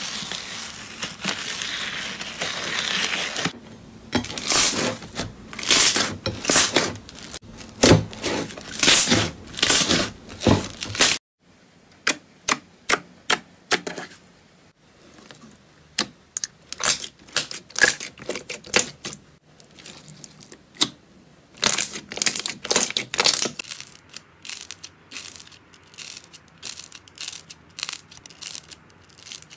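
Slime being squished and poked by hand. First comes a crackling, fizzy crunch of bubbly foam slime, turning into dense, crisp snaps and pops as fingers work into it. After a sudden stop about a third of the way in come scattered wet pops and clicks of glossy slime being pressed, then many small quieter clicks near the end as soft foam slime is squeezed.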